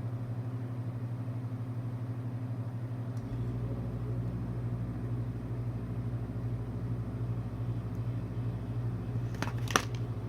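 Steady low electrical hum that takes on a deeper note about three seconds in, with one sharp click near the end.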